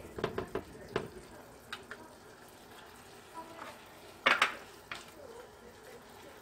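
Marinated sliced pork sizzling softly in a nonstick frying pan as wooden chopsticks stir and turn it. The chopsticks give light clicks and scrapes against the pan, several in the first second and a louder clatter a little over four seconds in.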